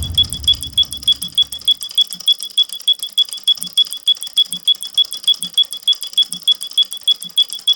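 Sped-up clock ticking sound effect: rapid, even, sharp ticks about six a second, with a soft low thump about once a second. A low rumbling background fades out in the first two seconds.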